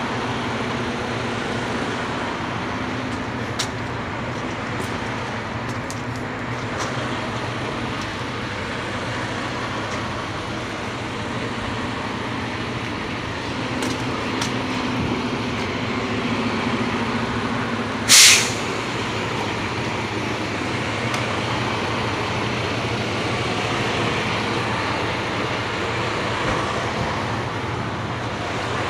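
Semi truck's diesel engine idling steadily, with a short, loud burst of escaping air from the truck's air system about eighteen seconds in.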